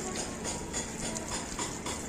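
Background music with a steady beat, about four beats a second.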